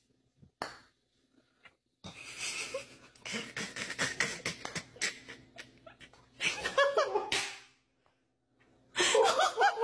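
A person laughing, breathy and wheezing at first, with louder voiced bursts of laughter about two-thirds of the way through and again near the end. The first two seconds hold only a faint tap.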